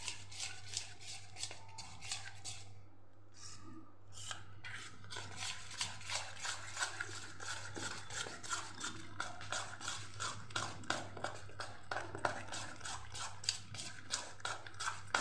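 A hand beating dhokla batter in a steel bowl: quick rhythmic strokes, several a second, over a steady low hum.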